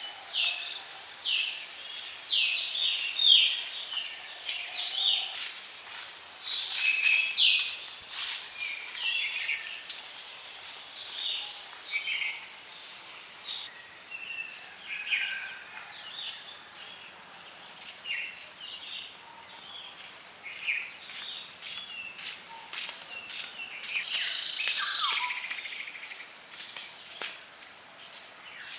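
Birds chirping over and over against a steady high-pitched drone of insects.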